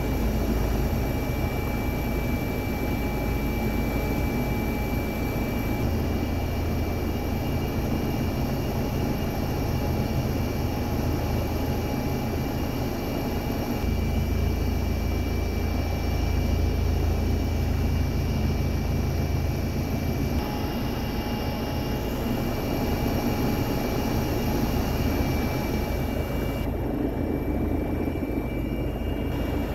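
Helicopter turbine engine and rotor noise heard from inside the cabin: a steady drone with high steady whines over it, its tone shifting slightly a few times.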